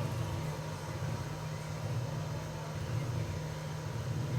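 Steady low mechanical hum without breaks.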